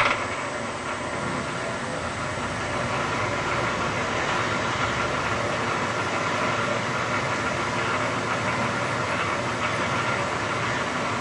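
Metal lathe running under power feed on a thread-cutting pass, the motor and change gears giving a steady mechanical whirr that gets a little louder about three seconds in.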